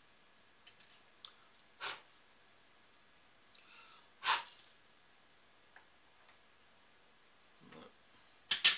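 Scattered clinks and knocks of small metal parts and tools being handled on a small bench-top hand shaper: a few light ticks, a louder knock about two seconds in, the loudest clack a little past four seconds, and two sharp clicks in quick succession near the end.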